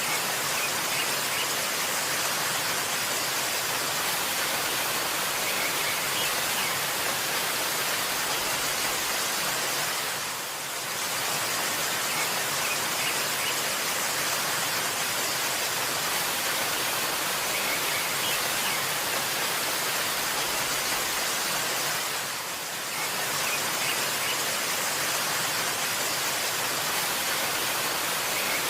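Waterfall with a steady rush of falling water that dips briefly twice, about a third of the way in and again about three quarters through.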